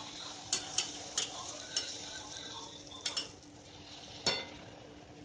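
A puri deep-frying in hot oil in a steel kadai, sizzling steadily, while a metal spatula clinks against the pan several times, loudest about four seconds in.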